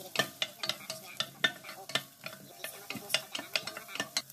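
Wooden spatula stirring chopped onion frying in a non-stick pot: irregular knocks and scrapes of the spatula against the pot, several a second, over a faint sizzle.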